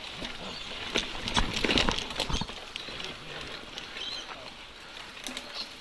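Mountain bike rolling over a dirt and leaf-litter singletrack: tyres crunching and pattering on the ground, with frequent small clicks and rattles.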